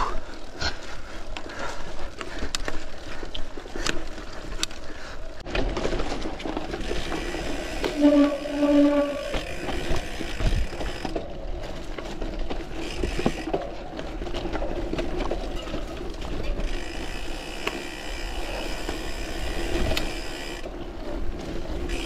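Bicycle ridden over a rough track: the frame, drivetrain and freewheel clicking and rattling, with the tyres on the loose surface. A brief pitched sound comes about eight seconds in.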